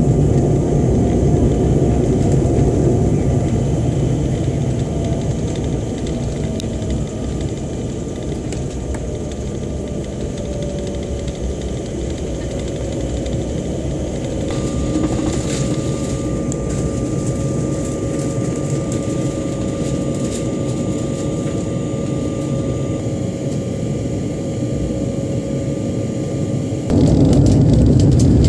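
Cabin noise inside an Embraer 195 airliner taxiing: a steady rumble of the engines and wheels, with a faint steady whine above it. About a second and a half before the end the rumble abruptly gets louder.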